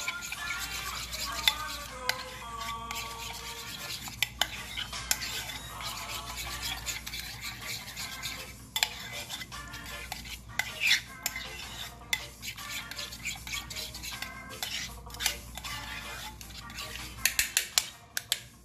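A metal fork stirring a thick sauce in a ceramic bowl, clinking rapidly and repeatedly against the bowl's sides, with a quick run of sharper clinks near the end.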